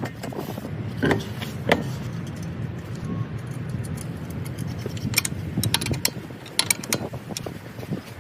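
Metal clicks and knocks of tools and parts being fitted as a car's brake pads, caliper and wheel are reassembled, over a steady low hum.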